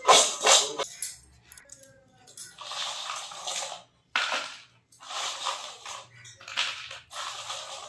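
Crispy fried bitter gourd chips rattling and crunching against a stainless steel bowl as a hand tosses them, in a run of short dry rustling bursts: loudest in the first second, then a short lull and more bursts. The dry rattle is the sign that the chips are fried fully crisp.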